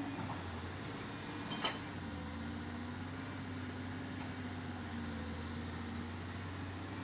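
A motor running steadily with a low drone. A single sharp knock sounds about a second and a half in.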